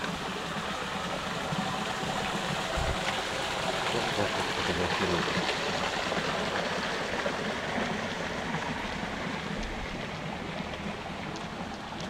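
A steady rushing noise that swells slightly in the middle.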